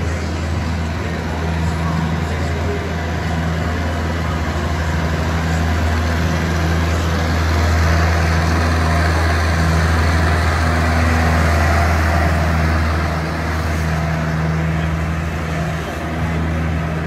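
Lovol compact tractor's diesel engine running steadily as it drives and drags a harrow over arena sand, getting louder as it passes close about halfway through, then easing off.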